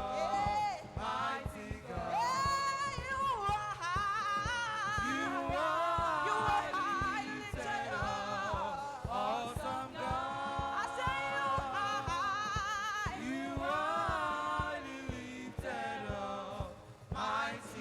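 Congregation or choir singing a gospel praise song over a steady percussion beat.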